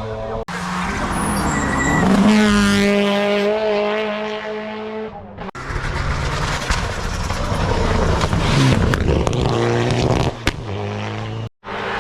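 Hill-climb race car engines running hard at high revs as the cars pass, pitch climbing and falling with throttle and gear changes. The sound drops out abruptly twice, where short clips are cut together.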